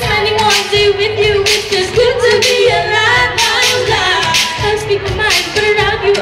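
Female vocalists singing a pop song into microphones, over a steady beat.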